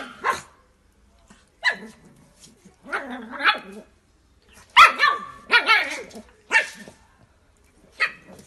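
Black pug puppy barking, a string of about ten short barks with gaps between them, some in quick pairs, as it tugs at a torn strip of wallpaper.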